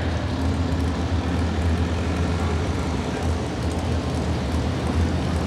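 A vehicle engine running steadily at a low, even pitch, heard through the noise of a crowded arena.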